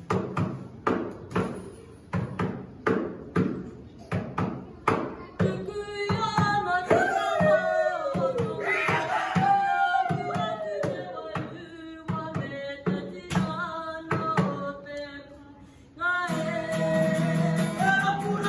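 Kapa haka group singing a Māori action song to acoustic guitar. A steady beat of sharp strikes, about two a second, comes first. Singing with sliding pitch joins it about six seconds in, and near the end the whole group comes in singing loudly.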